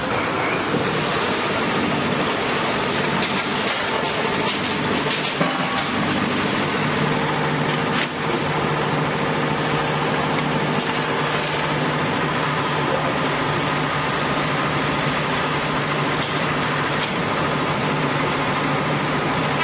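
Engine of a wood-milling saw running steadily, with a dense, even noise throughout and a faint steady hum.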